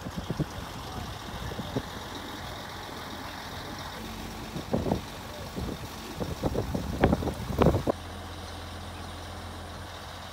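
Tilt-tray tow truck running steadily, with a run of sharp metallic clanks and knocks in the middle. The low hum shifts about eight seconds in.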